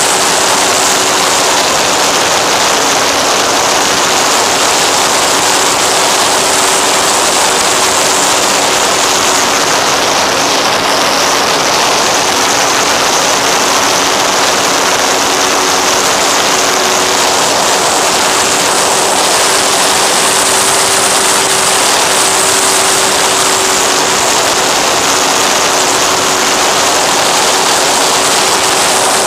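Loud steady wind rush over the onboard camera together with the even drone of the FX-79 flying wing's electric pusher motor and propeller in cruising flight, two steady tones held under the rush.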